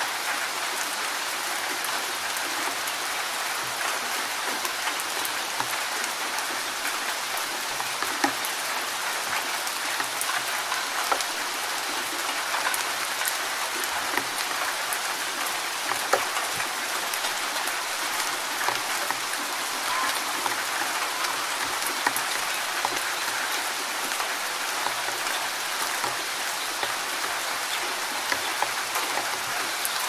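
Steady rain falling: a dense, even hiss with scattered sharper taps of individual drops.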